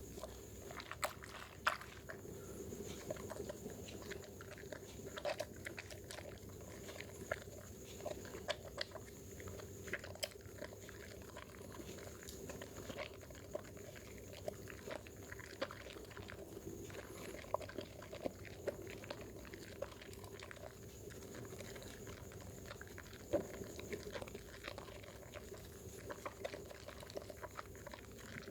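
Dermythol bar soap being lathered with water: wet squishing and irregular crackling clicks of the foam, over a steady faint background hum.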